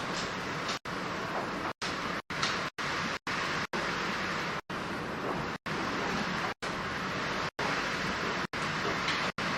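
Steady rushing noise, cut by short total dropouts roughly once a second, where the sound vanishes completely for an instant and returns.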